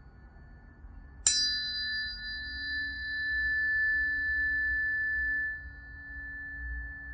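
A planetary tuning fork is struck about a second in and rings with a clear, steady pitch. Its bright high overtones fade after a few seconds, and the tone drops off sharply near the end while a fainter fork tone carries on.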